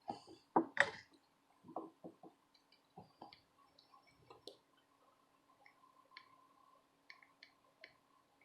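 Small clicks, taps and light scrapes of hand tools and parts being handled during fine electronics soldering, loudest about a second in and sparser after, over a faint steady hum.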